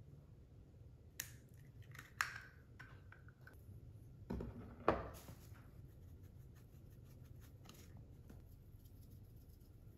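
A second egg cracked on a glass mixing bowl, with two sharp taps in the first couple of seconds. Then a louder knock around the middle, followed by faint rapid ticking as salt and pepper are shaken from shakers over the bowl.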